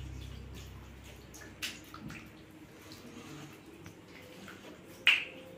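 Hands squishing and kneading raw chicken pieces in a thick wet marinade in a steel bowl: soft wet squelches and small clicks, with one sharper click about five seconds in.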